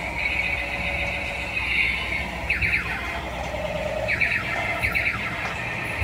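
Transforming robot tank toy's built-in speaker playing shrill electronic sound effects: a steady high tone broken by repeated quick falling 'pew' sweeps, with a low rumble underneath.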